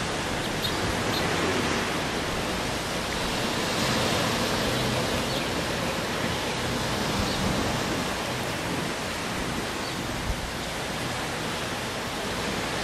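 Steady, even rushing noise of wind and surf.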